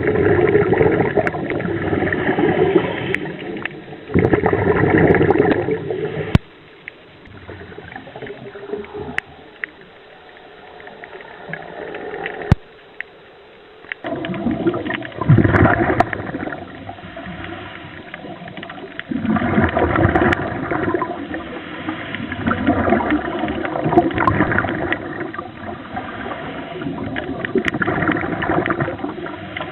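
Bubbling and gurgling water heard underwater, coming in surges a few seconds long with quieter gaps between them.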